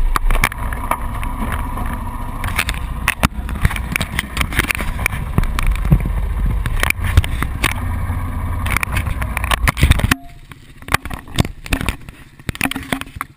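ATV engine running, while hands knock and rub against the camera housing. About ten seconds in the engine noise drops away sharply, leaving scattered handling knocks.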